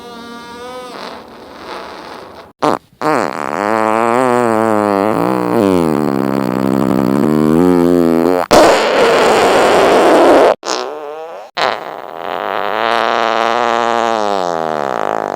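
A string of fart sound effects with short breaks between them: a long fart with a wavering pitch, then a hissing, airy one about eight seconds in, then another long pitched one.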